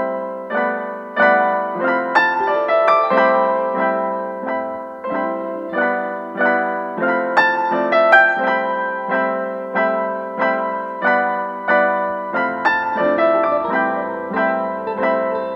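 Background piano music: a melody of evenly struck notes, about two a second, with a lower bass note joining near the end.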